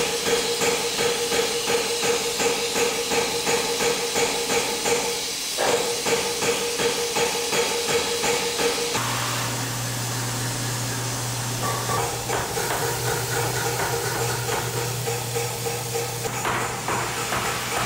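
Quick, even tapping, about four strikes a second, like hammering on metal, over a steady hum. The tapping breaks off briefly about five and a half seconds in and thins out after about nine seconds, when a lower hum comes in.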